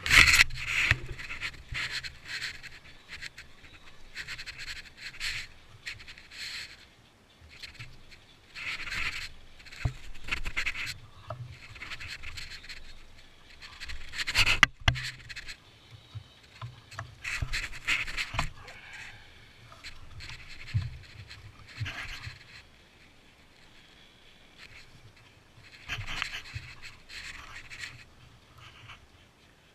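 Irregular scraping and rubbing in bursts a second or two long, typical of hand-tool work on metal parts, with a sharp knock about halfway through.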